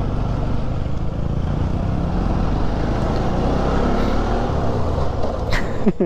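Motorcycle riding: the engine runs steadily under heavy wind rush on the microphone. A sharp click comes near the end.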